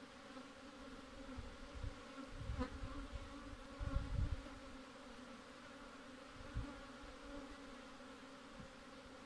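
Honeybees from an opened hive buzzing in a steady low hum. A few low thumps come between about one and five seconds in, loudest around four seconds, with one more later and a single sharp click near the start of them.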